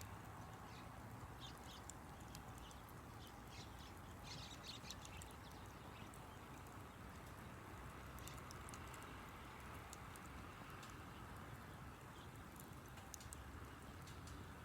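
Wood campfire crackling faintly: scattered small pops and snaps over a steady low rumble.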